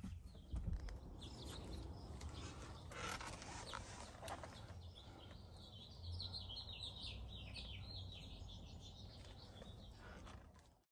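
Small birds chirping in a quick run of short, high calls for several seconds, over a faint steady low rumble. A single short knock comes about half a second in.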